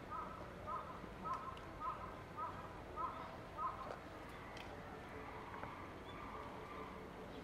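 A bird calling over and over: seven short, identical calls, evenly spaced about half a second apart, ending about four seconds in.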